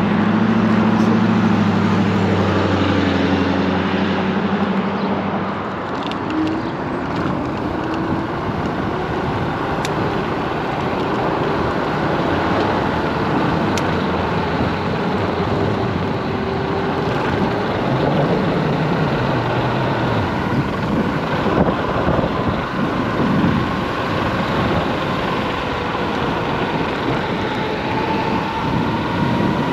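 Solar FF Lite electric scooter riding in traffic: a steady rush of wind and road noise, with a motor whine that rises and falls in pitch as speed changes. A low steady hum fills the first few seconds, and a whine climbs in pitch near the end.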